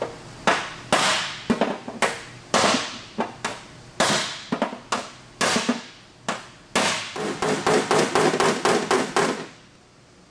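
Hammer tapping on a thin aluminum fender panel, bumping small dings out from the back side. The blows are sharp and ring briefly: spaced single taps at first, then a quick run of about a dozen taps, about five a second, which stops a little before the end.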